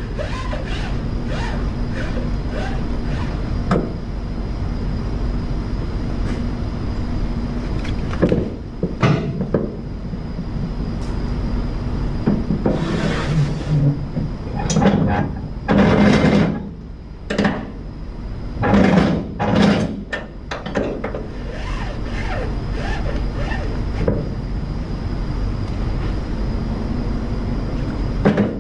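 Cargo straps being worked on a flatbed trailer loaded with pipe: scattered metal clicks, clanks and knocks from ratchets and winches as the straps are tightened, a few longer rustling, scraping bursts, and a strap thrown up over the load near the end, over a steady low hum.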